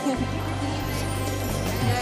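Background music from the drama's score, with a steady low bass that comes in just after the start.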